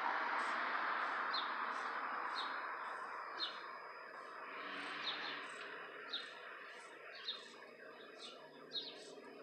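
Small bird chirping repeatedly, one short falling chirp about every second, over a steady background hiss that fades during the first few seconds.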